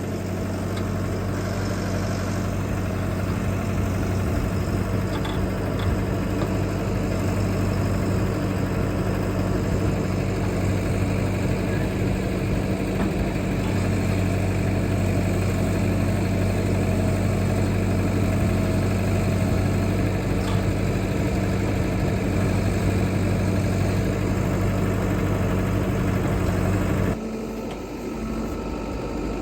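Backhoe's diesel engine running steadily, then dropping off sharply and quieter near the end.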